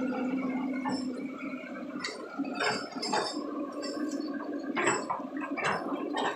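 Excavator at work: its engine runs steadily under irregular sloshing, watery noises and sharp knocks.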